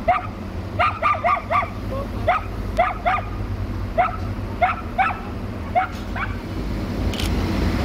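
A dog barking repeatedly, about two short barks a second, stopping about six seconds in, over the steady low rumble of the ADH11 diesel railcar running.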